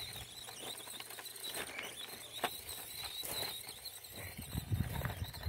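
Small 1/24-scale RC crawler driving over loose gravel: a thin, steady, high whine from its little electric motor and gears, over small crunches and clicks of tyres and stones. Heavier crunching thuds come in near the end.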